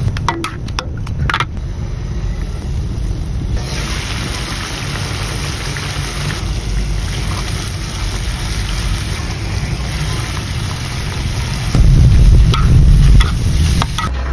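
Chicken sizzling and simmering in soy sauce in a wok, a steady hiss over a low rumble. A few light clinks of a utensil come in the first second or so. A louder rumble with a couple of clicks comes near the end.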